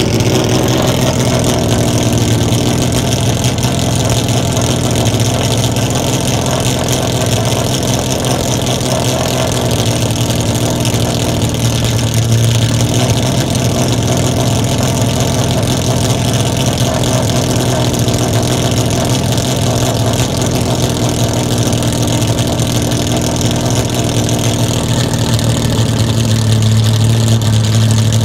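Vintage racecar engine idling through twin exhaust tips while warming up. It runs steadily, swelling slightly about twelve seconds in and again near the end.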